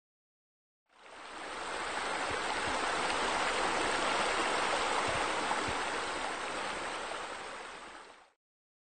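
Steady rush of water falling from a spa spillover into a pool. It fades in about a second in and fades out near the end.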